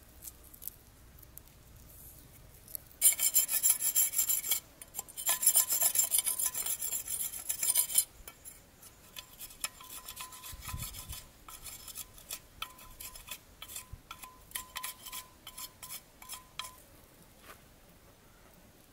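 Loud rasping scrapes from handling a leaf-wrapped bundle and a machete on a wooden chopping block, starting about three seconds in and lasting some five seconds with a short break, then softer scraping and light clicks.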